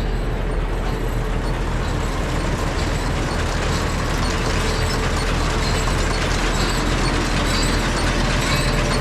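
Claas Rollant 540RC round baler running, driven by a tractor, with the tractor engine running steadily and faint light ticking from the machinery.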